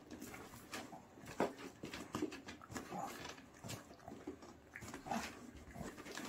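A short-muzzled dog sniffing with its nose pushed into the holes of a cardboard treat box. Scattered light knocks and scrapes come from the cardboard as it searches.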